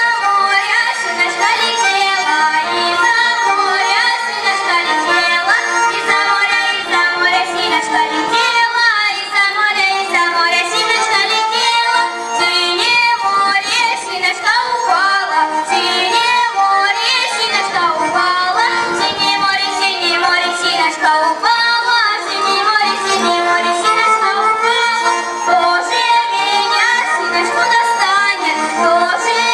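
Children's voices singing a Russian folk song over sustained instrumental accompaniment.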